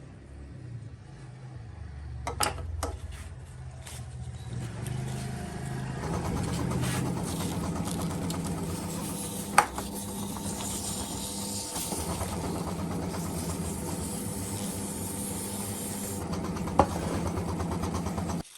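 A small motor running steadily, its pitch shifting during the first few seconds, with a few sharp clicks; it cuts off abruptly near the end.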